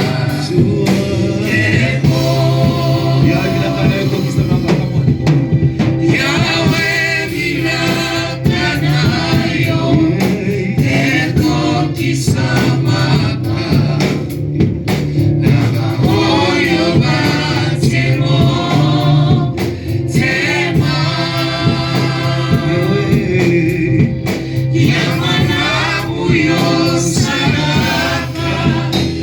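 Church choir singing a gospel song in Swahili, with sustained, wavering sung phrases over a steady low accompaniment.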